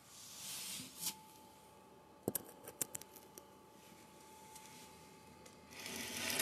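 Handling noise as a phone is moved and set down: rustling of fabric against the microphone, a click about a second in and a quick run of sharp clicks a little after. A faint steady hum sits underneath, and the rustling grows louder near the end.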